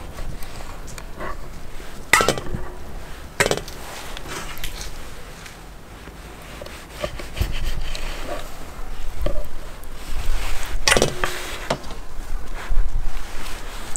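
Kitchen knife cutting raw lamb testicles on a wooden cutting board: quiet slicing and handling, with three sharp knocks of the blade or the meat on the board, about two seconds in, a second later, and near eleven seconds.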